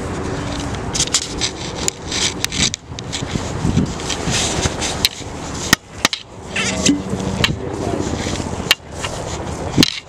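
Handling noise from a camera being jostled and swung about while its holder moves quickly: rubbing and scraping on the microphone, with scattered sharp knocks.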